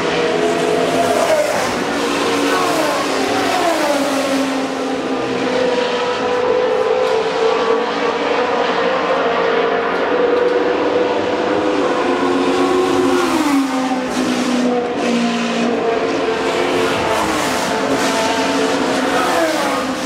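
Historic Formula One cars' engines running at high revs as the cars race past, several engines overlapping, with the pitch dropping away several times.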